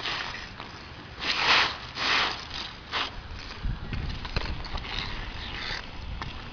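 Street hockey play on a concrete rink: two scraping swishes about one and two seconds in, then a run of light clicking taps of hockey sticks on the puck and pavement over a low rumble.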